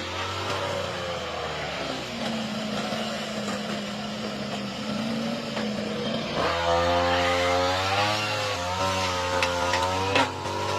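Lawn mower's small petrol engine running as it cuts through thick overgrown grass, its note sagging and wavering under the load, then coming back stronger and fuller about two-thirds of the way through. A sharp knock near the end.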